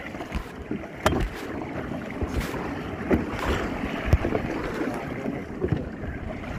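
Kayak being paddled through choppy sea: wind buffeting the microphone over the rush and splash of water, with a few sharp knocks about one, three and four seconds in.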